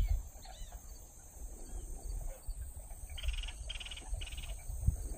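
Marsh ambience: a frog calls three short trilled bursts in quick succession about three seconds in, over a low rumble of wind on the microphone.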